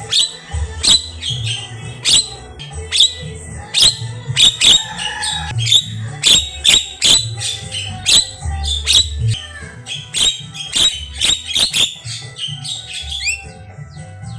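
Javan myna (jalak kebo) calling non-stop: a rapid string of sharp clicks, short whistles and harsh squawks, with a rising whistle near the end.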